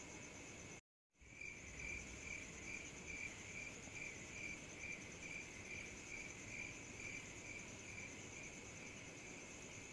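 Crickets chirping at night, faint. There is a steady chirp pulsing about twice a second with a higher continuous trill above it, broken once by a moment of complete silence about a second in.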